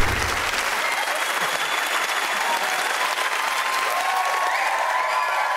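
Studio audience applauding steadily, with a short low thump right at the start.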